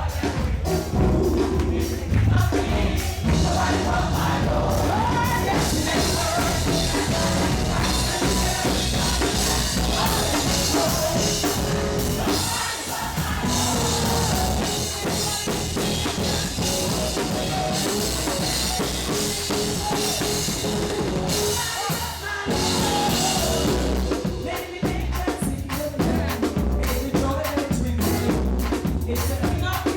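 Live gospel praise music: a band with drum kit and bass playing, with singing over it.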